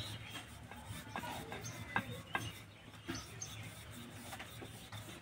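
Wooden rolling pin rolling out a folded strip of dough on a flour-dusted rolling board: faint rubbing with a few light knocks.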